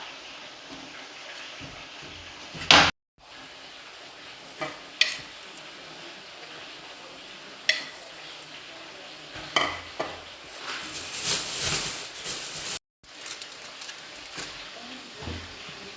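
Food sizzling steadily in a pan, with a metal spoon knocking and scraping against the pan several times.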